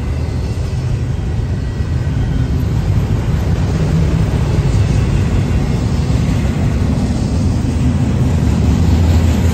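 Double-stack intermodal container train passing at speed, a steady loud rumble of steel wheels on the rails.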